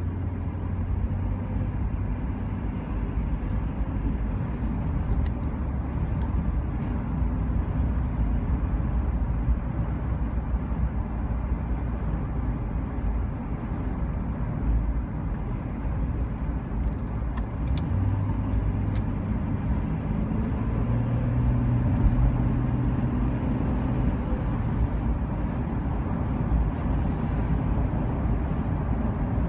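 A motor vehicle running steadily, with its engine and road noise making a continuous low rumble. The engine's pitch shifts a little about two-thirds of the way through.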